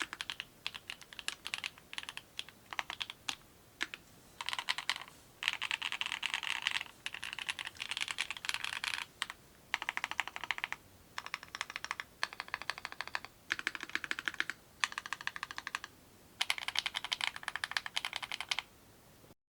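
Fast typing on a custom mechanical keyboard with clacky linear switches, in bursts of rapid keystrokes separated by short pauses. The sound cuts off abruptly near the end.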